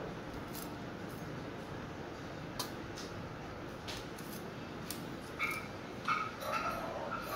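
Raw chicken being sliced by hand on a boti, a fixed curved floor blade, with a few faint clicks of the cuts over a steady background hiss. From about two-thirds of the way in, a dog whimpers in short high calls, the loudest sound here.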